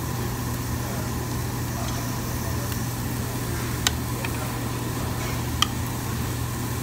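Steady low hum of restaurant ventilation over meat sizzling on a tabletop barbecue grill, with two sharp clicks of metal utensils, about four and five and a half seconds in.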